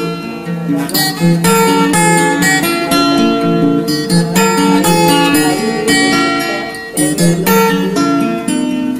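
Background music led by plucked acoustic guitar.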